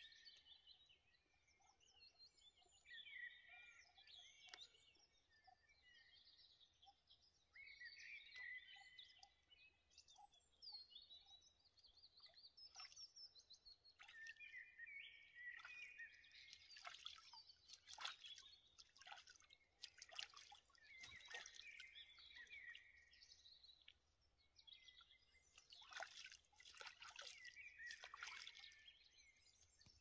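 Quiet chorus of several songbirds chirping and warbling over one another, with light water drips and trickles through the middle and near the end.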